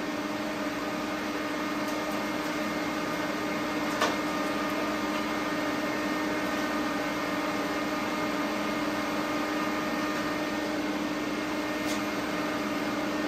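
Steady electrical hum and fan whir of running shop machinery, with a faint click about four seconds in and another near twelve seconds.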